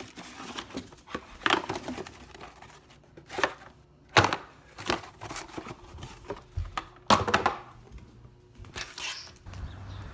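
Scrubbing a sneaker with a brush and shoe cleaner: about a dozen irregular rough strokes and rustles, a few louder than the rest.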